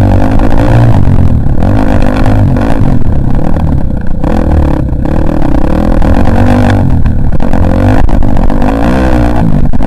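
Dirt bike engine running loud and close, its pitch rising and falling again and again as the throttle is opened and closed over the trail.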